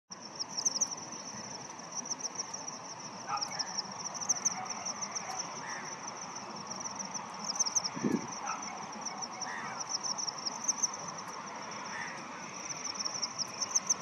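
Insects trilling without a break in a high, rhythmic run of pulsed chirps, with a few faint short bird calls lower down.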